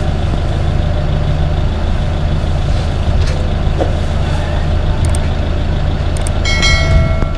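Steady low rumble of a heavy vehicle's engine idling, with street traffic around it. Near the end a short chime of several tones sounds.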